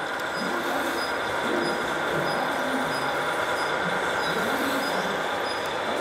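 Steady running noise of radio-controlled model trucks and construction machines, with a faint, short, high beep repeating about every two-thirds of a second.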